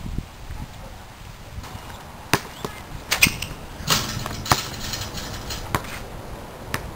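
Basketball bouncing on an outdoor asphalt court: a series of sharp, irregularly spaced smacks, with a louder, noisier clatter of several hits about four seconds in.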